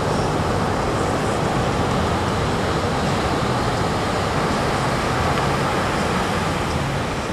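Ocean surf breaking onto the beach: a loud, steady rush of waves.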